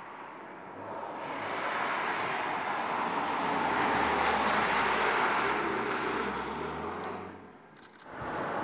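A Ford Mustang driving past, its engine and tyre noise swelling to a peak about halfway through and then fading. Near the end the sound drops away briefly before a steady driving sound returns.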